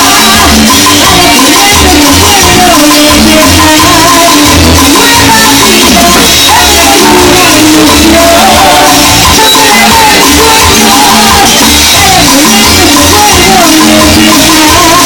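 Loud Latin-style music with a steady bass beat, shaker percussion and a singing voice.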